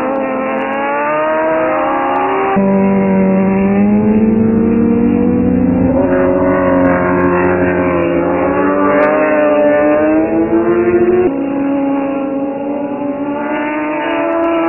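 Racing superbike motorcycle engines revving hard as the bikes accelerate through corners, the pitch climbing steadily. The sound jumps abruptly to a new pitch twice.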